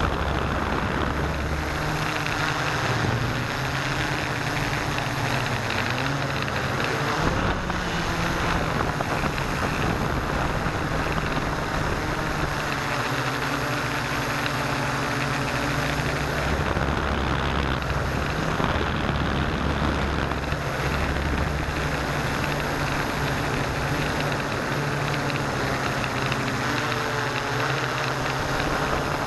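Multirotor hexcopter's six electric motors and propellers running steadily in flight, heard close up from a camera on the airframe as a dense buzz with a hiss over it. The low hum shifts in pitch a few times as the motor speeds change.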